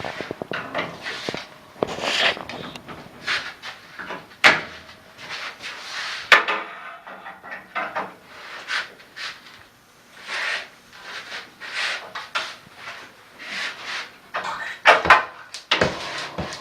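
Irregular wooden knocks, scrapes and rubbing, with a few sharp knocks.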